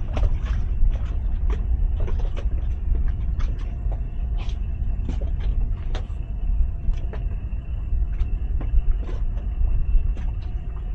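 Towboat's outboard engine idling steadily under a heavy low rumble of wind on the microphone, with scattered light clicks and knocks throughout.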